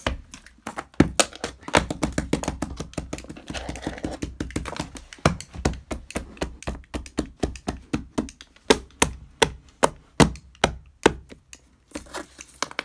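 A long run of sharp, irregular clicks and taps, several a second, some much louder than others.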